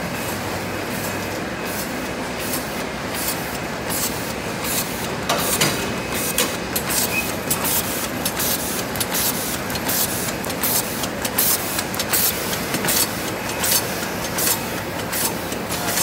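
Automatic two-lane T-shirt bag making machine (KS-1000D) running: a steady mechanical noise with quick, sharp, hissing strokes repeating several times a second as it cuts, seals and stacks film into bags. The strokes grow louder about four seconds in.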